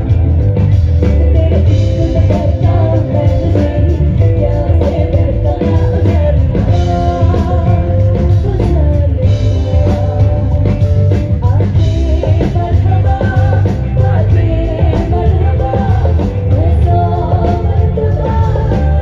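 Live band playing a song through a large outdoor PA system: singing over guitar and drums, with heavy bass.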